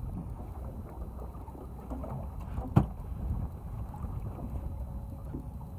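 Steady low rumble aboard a small fishing boat at sea, with one sharp knock nearly three seconds in.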